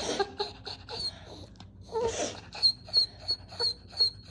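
Maltese panting quickly in short, regular breaths about three a second, with a short whine about two seconds in.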